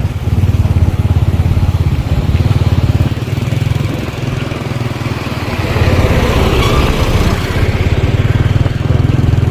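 A small engine running steadily with a fast, even firing pulse; it eases off a little about four seconds in and picks up again about six seconds in.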